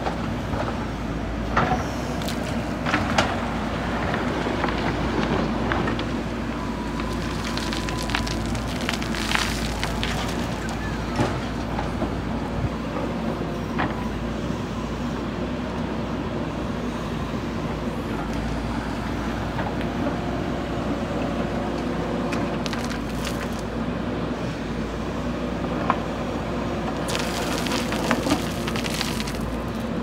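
JCB 3DX backhoe loader's diesel engine running steadily under hydraulic load while its backhoe bucket scoops gravel and soil and dumps it into a tipper truck bed. Scattered crunches and knocks of stones come through, and a longer rush of tipped material sounds near the end.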